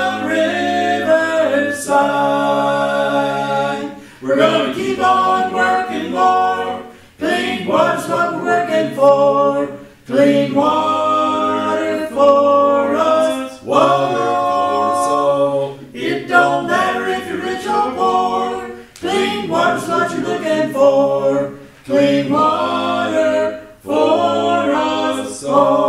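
A small group of mixed male and female voices singing a cappella, in phrases of a couple of seconds broken by short breaths.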